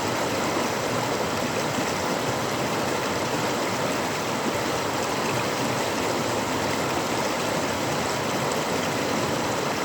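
Waterfall: falling water rushing in a steady, unbroken roar.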